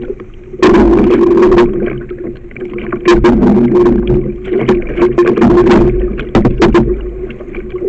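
Canoe running a shallow rapid: rushing, splashing water against the hull, with frequent sharp knocks throughout.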